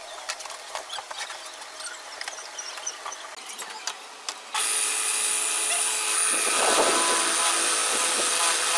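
Wood being handled, with scattered knocks and clicks. About halfway a table-mounted drilling machine's motor and chucked bit come in suddenly with a steady high whine. Near the end the bit cuts into the edge of a hand-held wooden strip.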